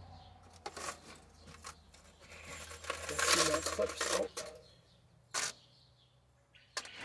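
Metal clicks and clinks as J-clip pliers, steel clips and the wire latch are worked against welded-wire cage mesh. A louder scraping rattle comes in the middle, and a single sharp click follows a second or so later.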